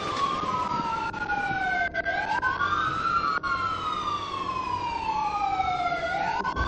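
Two emergency-vehicle sirens on a slow wail, each rising and falling over a few seconds and out of step with each other.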